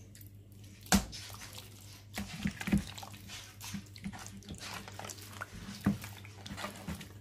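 Wet squelching and slapping of raw chicken breasts being squeezed and turned by hand in an oily spice marinade in a plastic bowl, with a few sharper slaps, the loudest about a second in. A steady low hum runs underneath.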